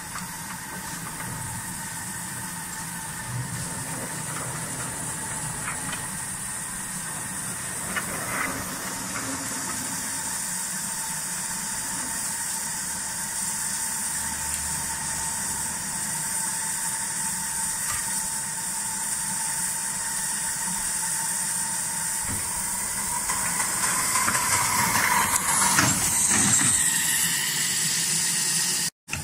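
Steady hiss of steam from a 7¼-inch gauge De Winton vertical-boiler steam locomotive standing in steam, with a few faint knocks; the hiss grows louder near the end.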